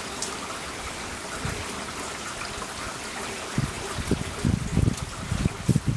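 Rain falling in a steady hiss, with irregular low thumps joining in about halfway through.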